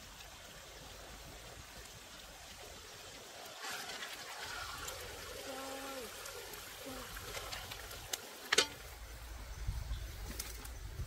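A stream trickling steadily, with a few short cooing calls in the middle and one sharp knock about eight and a half seconds in, followed by a low rumble.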